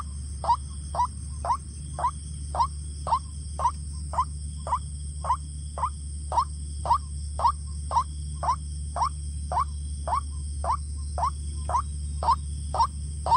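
White-breasted waterhen calling: one short rising note repeated steadily, about twice a second. A steady low hum and a steady high-pitched drone run underneath.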